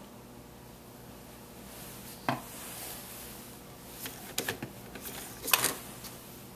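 Light handling noises: one sharp knock about two seconds in, then a few small clicks and short rustles, over a faint room hiss.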